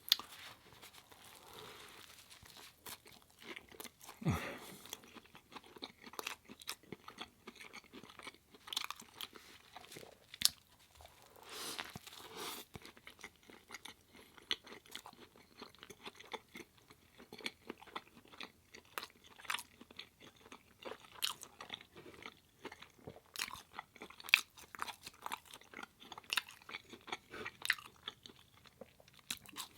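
Close-miked eating: a person biting and chewing food, with irregular crunches and wet mouth clicks and a few louder bites along the way.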